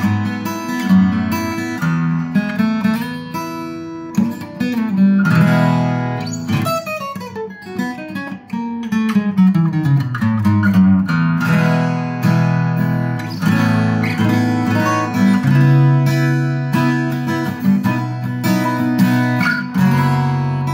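A 1970s Tokai Cat's Eyes CE-250 acoustic guitar, with a spruce top and rosewood back, played fingerstyle: a melody over plucked chords, with a long descending run of notes from about seven to eleven seconds in.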